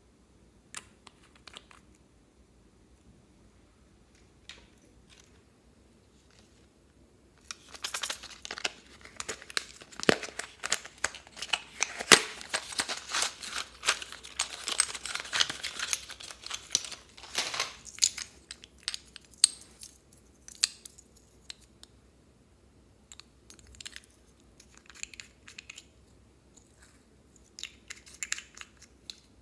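Slime being squeezed and stretched by hand, making a dense run of crackles and pops that starts about a quarter of the way in and thins out just past halfway, followed by scattered soft clicks.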